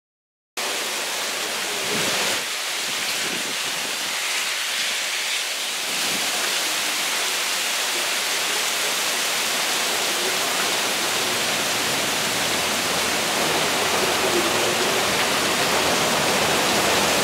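Heavy rain pouring down in a dense, steady hiss, with water gushing from a downspout. It begins abruptly about half a second in.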